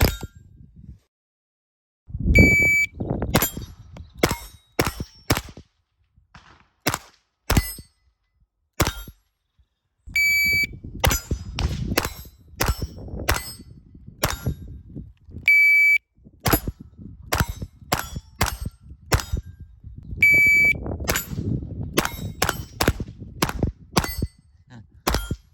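Four strings of rapid semi-automatic .22 rimfire fire from an AR15-22 rifle at steel targets. Each string starts on a shot-timer start beep and is followed by a quick run of sharp shots with steel plates ringing (clanging) as they are hit. The beeps come about two seconds in, ten seconds in, about halfway, and about twenty seconds in.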